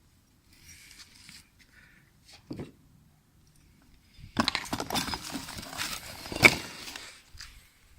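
Metal clinking and rattling of hand tools and car parts being handled, a dense run of clicks starting about halfway through, with one sharp clack near the end.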